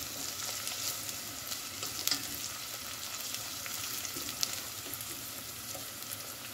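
Hot oil sizzling in a frying pan of shallow-frying pieces, a steady hiss with many small crackles and a few sharper pops. Alongside it, a slotted spatula stirs and scrapes spring onions and meat in a nonstick pan.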